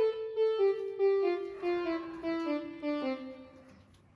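Background music: a phrase of notes stepping steadily downward in pitch, one after another, fading out near the end.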